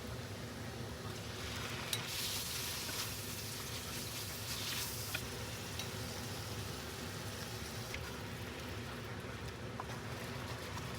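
Beef sizzling as it fries in a pan, with the hiss swelling about two to five seconds in and a few light clicks.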